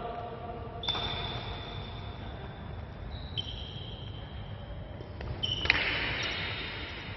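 Badminton rackets striking a shuttlecock during a rally: a sharp hit about a second in and a louder one near the end, over the steady noise of a large court hall.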